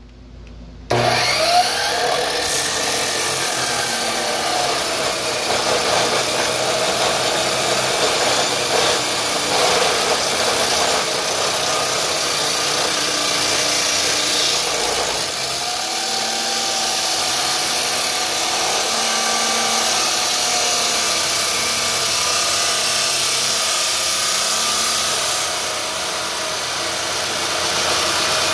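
Electric metal chop saw switched on about a second in, its Diablo 14-inch abrasive cutoff wheel grinding through steel. A loud, steady grinding noise with a wavering whine that drifts up and down in pitch as the wheel bears on the metal.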